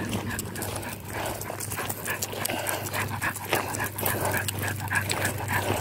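Three-month-old Labrador retriever puppy making quick, short panting and whimpering sounds, with scattered sharp clicks and scuffs.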